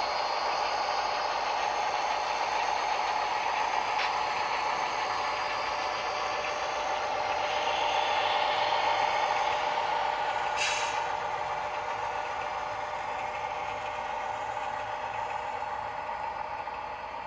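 Model diesel locomotives and freight cars rolling past on the track, a steady running noise from motors and wheels, with a sharp click about ten and a half seconds in.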